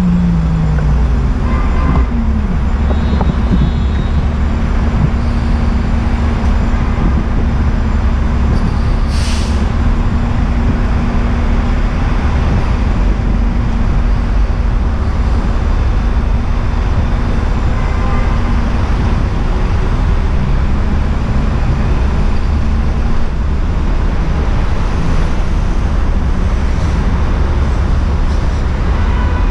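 City street traffic at an intersection: cars and a bus passing and turning over a steady heavy low rumble, with a short air-brake hiss about nine seconds in.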